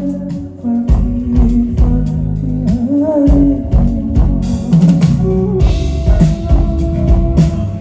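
A band playing live on stage during a sound check: a drum kit beating steadily under held guitar and bass notes, with cymbals crashing in the middle.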